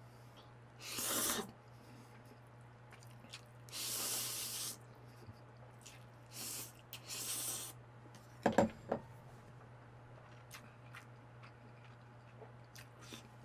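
A person slurping spicy mixed noodles in about four short, hissing pulls, then two quick knocks about eight and a half seconds in.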